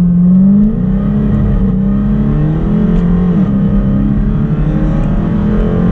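Dodge SRT V8 engine accelerating, heard from inside the cabin. The engine note climbs, dips briefly under a second in as the car shifts up, then pulls on steadily in the next gear.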